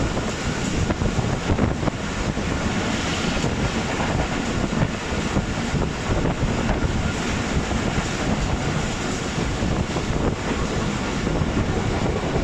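A passenger train running at speed, with a steady rush of wind over the microphone on top of the running noise of the coach.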